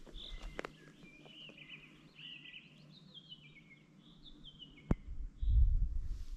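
Songbirds singing: a run of chirps and short trills, several falling in pitch. A click comes about five seconds in, then a loud low rumble on the microphone near the end.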